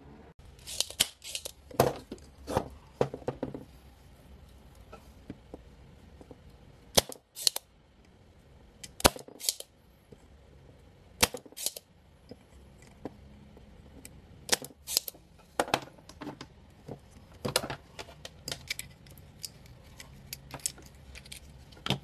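Irregular sharp clicks and snaps of bench work desoldering a chip from a circuit board, with several loud snaps about 7, 9 and 11 seconds in like a spring-loaded desoldering pump firing, among the clatter of the board and tools being handled.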